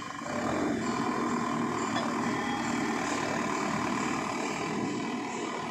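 ACE backhoe loader's diesel engine running steadily, with a thin steady whine above it.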